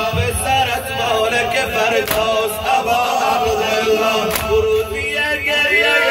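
A crowd of men chanting a Shia mourning noha in unison. Sharp chest-beating slaps (sineh-zani) land together about every two seconds.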